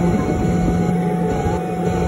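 Background music: a held low note over a steady low rumble.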